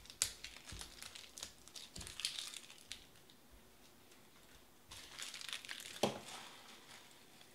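Plastic card sleeves crinkling and rustling as they are handled, with small clicks. It comes in two spells with a quieter gap in the middle and a soft knock about six seconds in.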